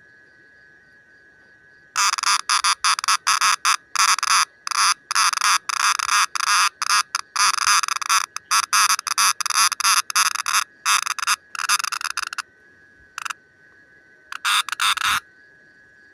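A green cicada calling in fast, rasping buzz pulses. A long bout starts about two seconds in and stops about twelve seconds in, followed by a brief burst and then a second short burst near the end.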